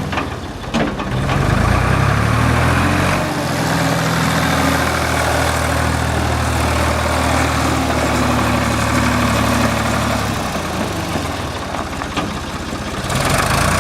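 Ford 4500 tractor loader backhoe's engine running steadily. Its pitch and level shift a few times: it picks up about a second and a half in, eases a little near the end, then rises again.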